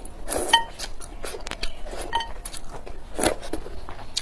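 Slurping of rice noodles and spicy broth, with chewing, in several short, loud slurps.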